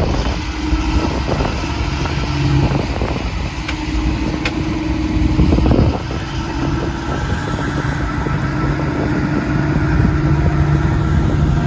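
Heavy diesel truck engine running steadily under load during a recovery pull, taking up the strap on a stuck truck.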